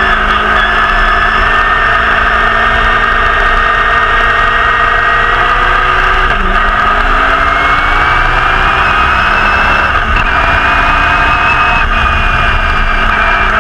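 The Repco 830 V8 of a 1969 Brabham BT31 racing car running hard at speed, heard onboard. Its note climbs steadily as the car accelerates, with a brief dip about six seconds in before it climbs again.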